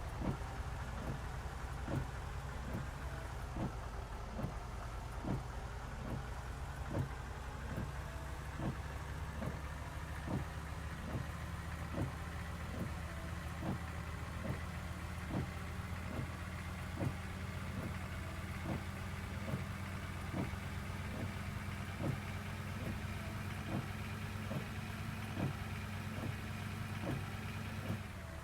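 Bus engine running steadily at idle, with sharp clicks repeating a little more than once a second over it.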